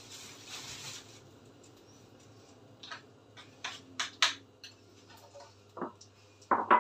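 A knife cutting bread on a wooden cutting board: a few sharp taps of the blade on the board, then a couple of louder knocks near the end as the board is handled. A hiss fills the first second.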